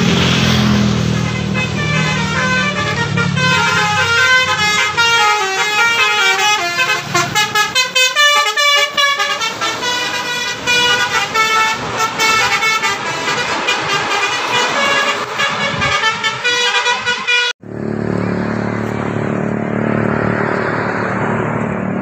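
Indonesian 'telolet' bus horn, a set of multi-tone musical air horns, playing quick stepped melodies of notes over and over above the bus's engine. It cuts off sharply about 17 seconds in, leaving steady engine and road noise of passing traffic.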